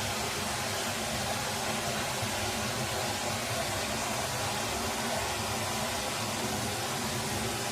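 Steady, even rushing of a forest stream's flowing water.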